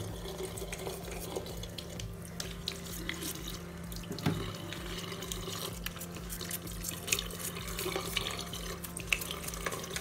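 Tap water running into a washbasin and splashing over a plastic washing machine inlet hose filter as it is scrubbed with a toothbrush, with small scrapes and clicks throughout and a louder knock about four seconds in.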